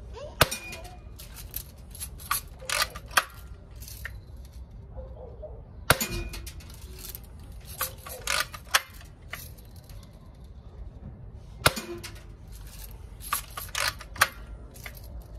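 Mendoza Vaquero lever-action air rifle fired three times, about five to six seconds apart, each shot a sharp crack. After each shot come several lighter clicks and clacks as the lever is worked and the rifle is readied again.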